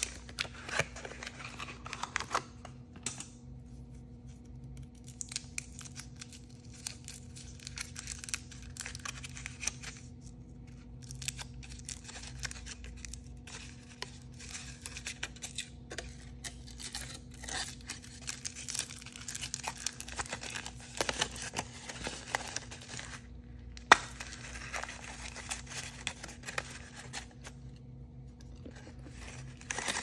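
Hands tearing open a cardboard blind box, then crinkling and peeling the foil wrapper off a chocolate surprise egg: dense, irregular tearing and crackling with short pauses. A single sharp crack stands out about two-thirds of the way through, over a steady low hum.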